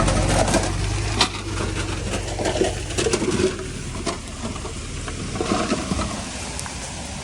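Heavy machinery's diesel engine running and fading away about a second in, followed by scattered knocks and clattering.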